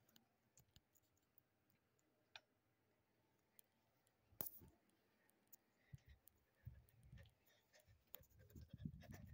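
Near silence broken by scattered faint clicks, one sharper click about four seconds in, and low thumps and rubbing near the end: a phone being handled, its body knocking and rubbing against the microphone.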